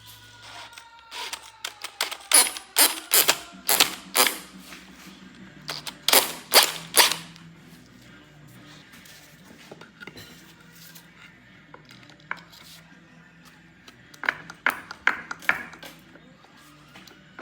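Sharp metal clicks and knocks of hand tools working on a 5.7 Hemi engine, in two bursts of rapid strikes with a quieter spell between, over a faint steady hum.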